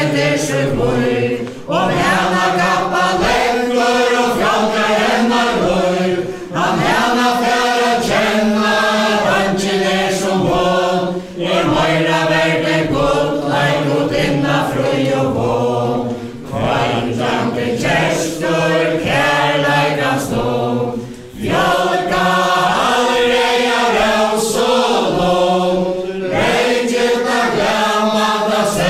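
Mixed group of men's and women's voices singing a Faroese chain-dance song together, unaccompanied, with a brief breath-break between lines about every five seconds.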